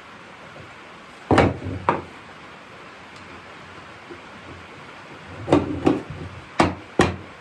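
Oak chair parts being knocked together at their joints with sharp blows on wood: two knocks about a second in, then four more near the end.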